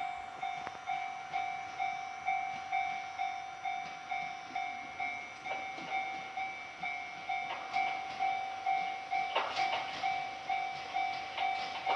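Railway level-crossing warning bell ringing, an electronic ding repeated evenly about twice a second, signalling an approaching train. A few faint clanks come in about nine seconds in.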